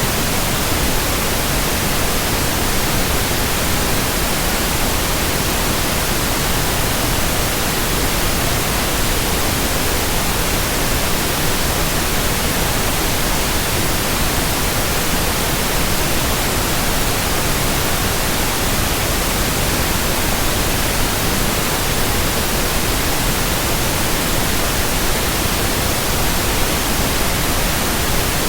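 Steady white noise: an even, unchanging hiss spread across the whole range from low to very high, with no hum, whoosh or rhythm in it.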